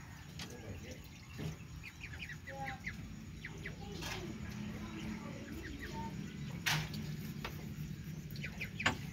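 Ducklings peeping in quick runs of short, high chirps, with a few sharp clicks in between, the loudest near the end.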